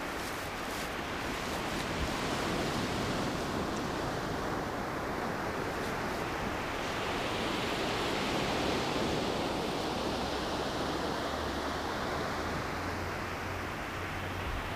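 Steady rushing outdoor noise, a continuous even hiss with no distinct calls or impacts.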